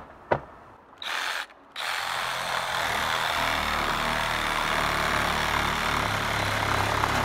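Cordless drill boring a hole through the roof: a short burst about a second in, then running steadily under load for the rest.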